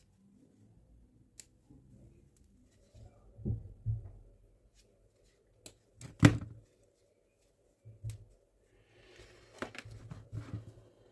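Small tools and battery parts being handled on a workbench: two soft knocks about three and a half seconds in, a sharper knock about six seconds in, a few light clicks, then scraping and rustling near the end.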